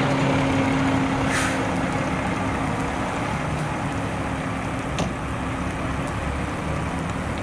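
Fire engine's diesel engine running steadily as the rig pulls up and stops, with a short hiss of air brakes about a second in and a sharp click about five seconds in.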